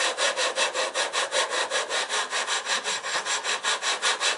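Steel lapping bar worked rapidly back and forth through a rifle's scope rings with lapping compound, scraping at about five strokes a second. The abrasive is wearing the insides of the rings into alignment with each other.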